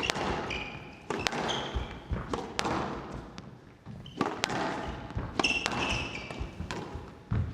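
Squash rally: the ball striking rackets and the court walls several times, with players' shoes squeaking on the court floor.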